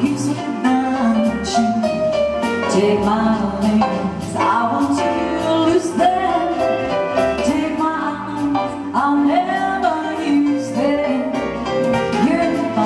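A song performed with a singing voice over instrumental backing that keeps a steady beat.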